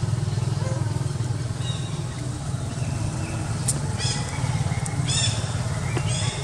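A small engine idling steadily with a fast low throb, with a few short high chirps about four and five seconds in.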